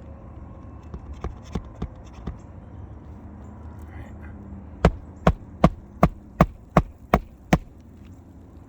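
Hammer driving a roofing nail through an asphalt shingle: a few light setting taps, then eight sharp, evenly spaced blows, about three a second, near the end.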